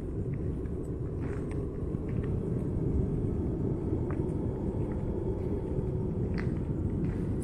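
Steady low rumble with no clear pitch, with a few faint clicks scattered through it.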